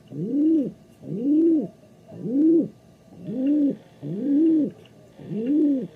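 A pigeon cooing, a low coo that rises and falls in pitch, repeated evenly about once a second, six times.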